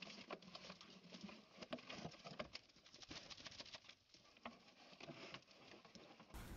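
Faint splashing and pattering of water in a half-barrel tub as a pig wallows in it, with a thin stream of water trickling in from above.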